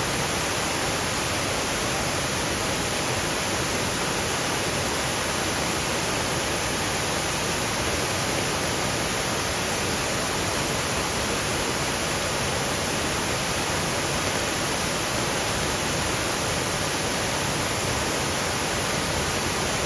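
Waterfall rushing steadily as water cascades over rocky ledges, a constant even roar, with light rain falling through the surrounding trees.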